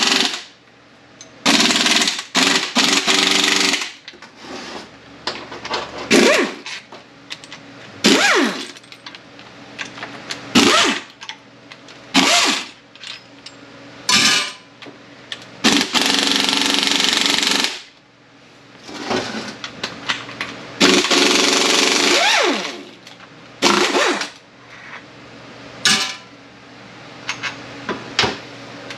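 Impact wrench hammering in repeated short bursts, some lasting a second or two, several rising quickly in pitch, as it runs out the 14 mm case bolts of a Honda BOYA automatic transmission. Small clinks of bolts and tool fall in the gaps between bursts.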